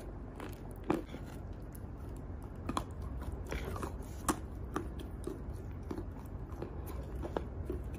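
Lumps of chalk being chewed and bitten in the mouth: irregular crisp crunches and crackles, the sharpest about a second in and just past the middle.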